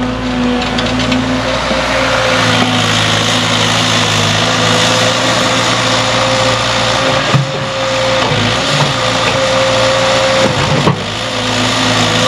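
Cat excavator's diesel engine running steadily under load while the machine swings and raises its boom, with a steady whine over the engine note.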